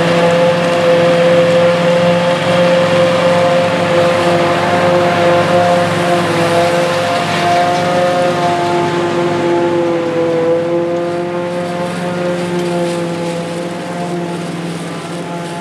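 A Farmall 806 tractor and a Sperry-New Holland 1880 Crop-Cruiser forage harvester running side by side, a steady machinery drone with a constant whine, as the harvester blows chopped corn silage into the tractor's wagon. The sound slowly fades over the second half.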